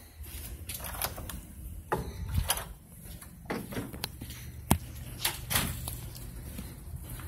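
Handling noise from a handheld phone: irregular knocks and rubbing against the microphone over a low rumble, with one sharp knock a little past the middle.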